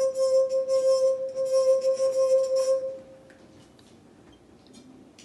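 A wine glass singing as a wet finger is rubbed around its rim: one steady, pure ringing tone that holds for about three seconds and then fades out.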